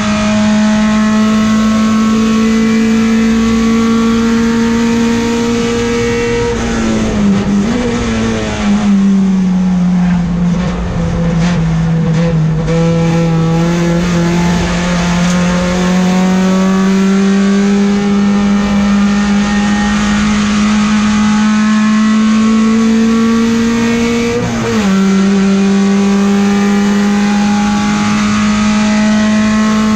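Peugeot 405 STi race car's engine heard from inside the cockpit under hard driving. It holds high revs, falls about seven seconds in as the car slows, climbs slowly for a long stretch, and drops quickly about 25 seconds in with a gear change.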